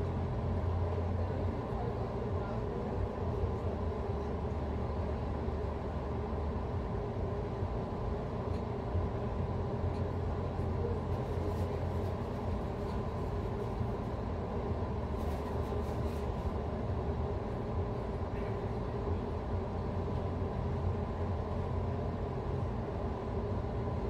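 Steady low rumble with a constant hum, unchanging throughout.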